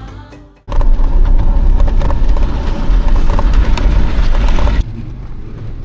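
Land Rover Defender driving on a muddy, waterlogged track: a loud rumble of engine and tyres that starts suddenly under a second in, then drops abruptly to a quieter, steady engine hum about five seconds in.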